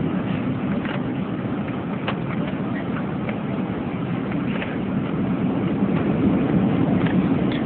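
Steady cabin noise of an airliner on descent, heard at a window seat over the wing: a low rumble of engines and airflow. It swells slightly near the end, with a few faint clicks on top.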